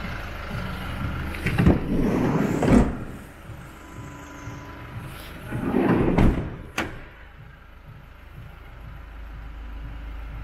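Volkswagen Caddy van's front door being opened: two short bouts of handling noise with clicks, the second ending in a sharp click about seven seconds in.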